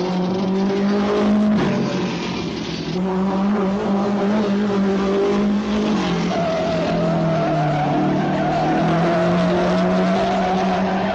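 Cartoon sound effects of a hot-rod car engine running hard, a steady pitched drone. A higher squealing whine of skidding tyres joins about six seconds in.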